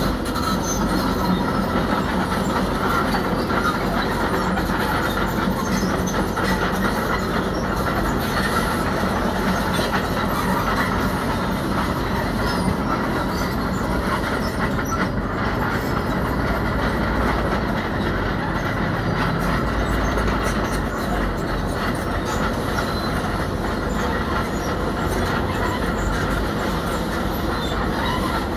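Crawler earthmoving machine working: steady diesel engine with steel tracks clanking and squealing.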